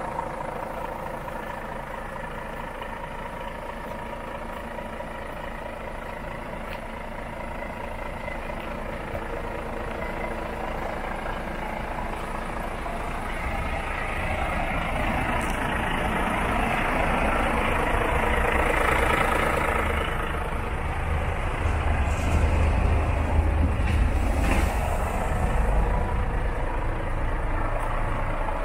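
Volvo FH4 460's 13-litre six-cylinder diesel idling steadily, its low rumble growing louder from about halfway through.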